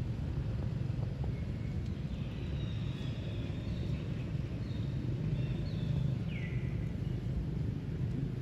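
Steady low outdoor rumble with faint high chirping calls in the middle, one of them sliding down in pitch about six seconds in.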